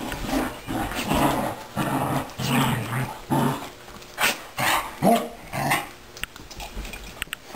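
Two dogs play-fighting, growling and snarling in a rapid series of short bursts. The sounds thin out over the last second or so. The growls are play, not real aggression.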